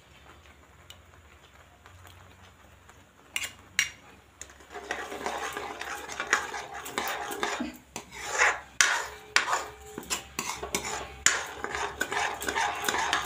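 Metal spoon stirring thick reduced milk in a large metal pan, scraping and clinking against the pan's bottom and sides in a rapid, uneven run. The stirring starts about five seconds in, after two single clinks.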